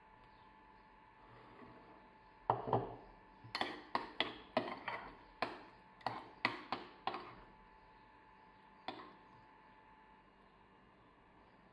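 Metal spoon clinking and scraping against a ceramic bowl as guacamole is stirred: a run of about a dozen sharp clinks over some four seconds, starting a couple of seconds in, then one more later.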